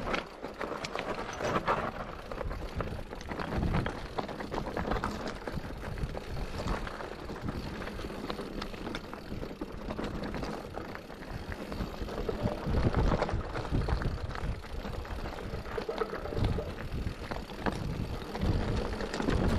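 Mountain bike riding down a loose, rocky trail: tyres rolling over stones, with the bike rattling and clicking on every bump.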